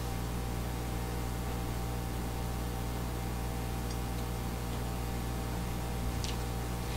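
Steady hiss and low electrical hum from open microphones and the sound system, with one faint click about six seconds in.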